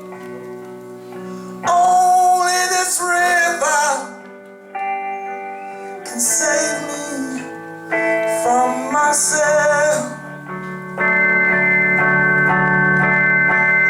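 Live band performing a slow soul ballad: guitars holding sustained chords while voices sing in phrases that start and stop. A fuller chord swells about eleven seconds in and is held.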